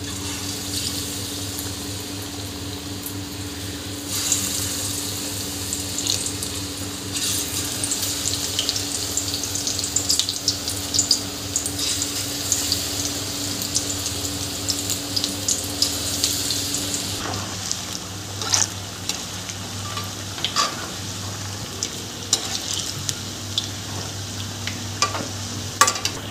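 Buckwheat-flour and spinach pakora batter deep-frying in hot ghee in an aluminium kadhai: a steady sizzle full of small crackles, getting busier about four seconds in and easing off after about seventeen seconds. A steady low hum runs underneath.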